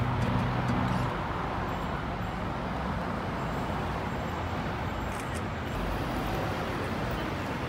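City street traffic noise, steady, with vehicles passing. Background music stops about a second in.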